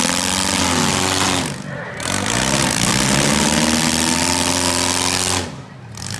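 Four-cylinder demolition derby car engines revving hard over a loud, rough exhaust noise. The pitch climbs and sags in two long sweeps, dropping off briefly about a second and a half in and again near the end.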